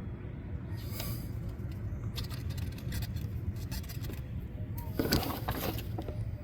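Truck engine idling with a steady low rumble, with clicks and scrapes of parts being handled in the engine bay, loudest about five seconds in.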